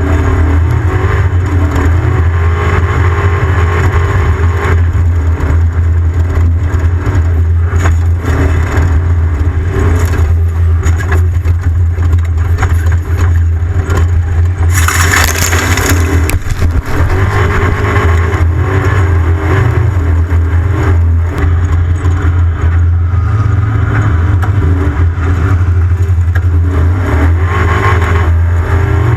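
Off-road race vehicle's engine running steadily under load, with constant rattling and clatter over rough ground; a short rush of noise about halfway through.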